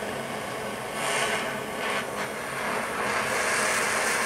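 Handheld butane torch flame hissing steadily as it heats the nail of a glass dab rig, with a couple of louder swells about one and two seconds in.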